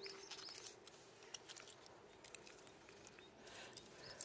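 A cat chewing dry kibble from a plate: faint, irregular crunching clicks. A small bird chirps in short repeated notes at the start and again near the end.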